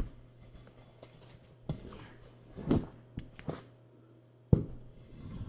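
A few scattered knocks and thumps, the loudest a sharp one about four and a half seconds in, from a person moving and handling things on the floor while kittens run about.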